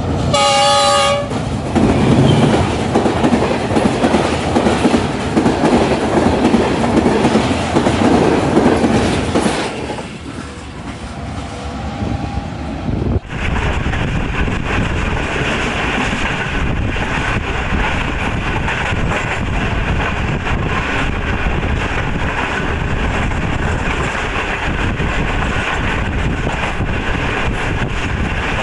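A diesel locomotive's horn sounds for about a second, then the train passes close by with a loud rumble of engine and wheels that eases after about ten seconds. About thirteen seconds in the sound changes suddenly to the steady running noise of the moving train heard from its open doorway.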